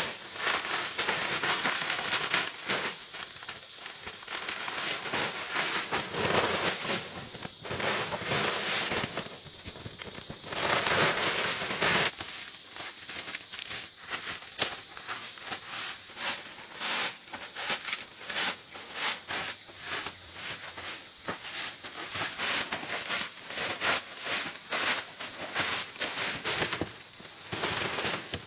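Dry leaf thatch crackling and rustling as it is torn off a hut roof by hand and thrown down, in a dense, irregular run of crisp snaps, loudest about eleven seconds in.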